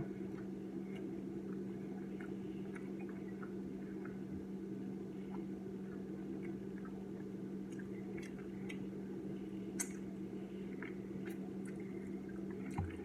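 Faint wet chewing and sticky mouth clicks from eating a glazed-donut fried chicken sandwich, over a steady low hum. A sharper click comes about ten seconds in.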